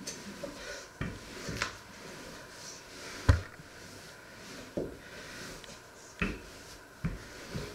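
Wooden rolling pin working a thin sheet of dough on a floured wooden worktop: soft rolling rustle broken by about half a dozen irregular dull knocks of wood on wood, the loudest about three seconds in.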